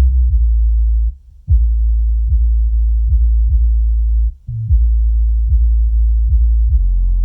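Jamo Sub200 8-inch long-throw powered subwoofer playing bass-heavy electronic music at high volume, run at full frequency range: deep, sustained bass with a regular beat a little faster than once a second. The bass drops out briefly twice.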